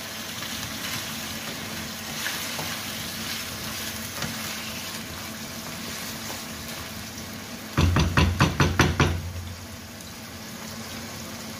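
Raw chicken pieces sizzling steadily in hot oil in a non-stick wok while being stirred with a wooden spatula. About eight seconds in comes a quick run of about seven loud knocks.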